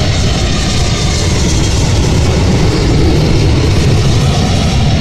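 Jet airliner engine noise: a steady, loud rush with a deep rumble underneath.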